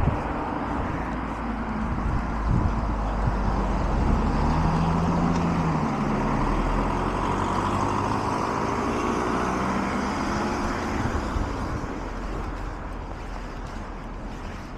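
Cars passing on a wide multi-lane road, tyre and engine noise swelling as they go by and easing off near the end.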